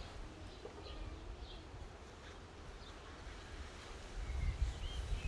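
Outdoor ambience: wind rumbling on the microphone, stronger about four seconds in, with faint, scattered bird chirps.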